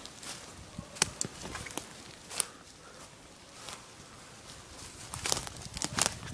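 Footsteps crunching over dry ground cover: a few scattered, crackling steps, a quieter stretch, then a run of louder, quicker steps near the end.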